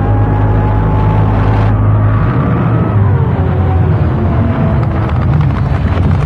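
Nitromethane-burning top fuel hydroplane drag boat engine at full power on a pass, its note dropping in pitch a little over two seconds in.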